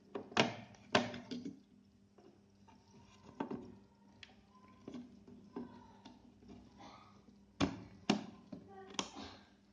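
Sharp clicks and knocks of computer parts being handled and pressed into place during PC assembly, with two near the start, one midway and a quick cluster near the end.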